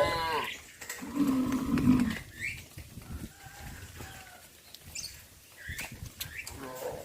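Cows mooing: a call tails off right at the start, then a low moo about a second in lasting about a second, with scattered short knocks and fainter calls afterwards.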